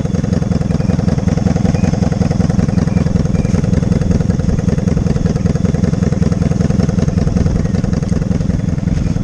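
Motorcycle engine idling steadily with an even, low rumble.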